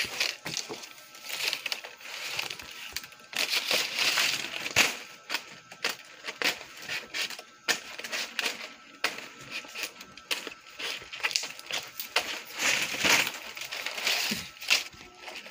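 Nipa palm leaflets rustling and crackling as they are handled, folded and pressed onto a stick to make a pawid thatch shingle, with irregular rustles and small sharp snaps.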